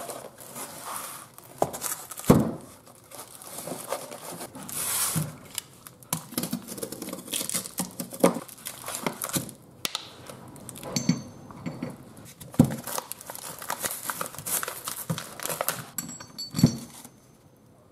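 Packing paper and a cardboard box rustling and crinkling as locker parts are unwrapped, with a few sharp knocks of the metal parts being set down on the workbench.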